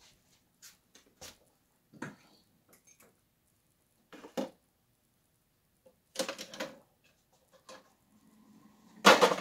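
Clicks and knocks of a ceramic mug being set down and a single-serve pod coffee maker's lid being handled, ending in one loud clunk near the end; a low steady hum comes up just before it.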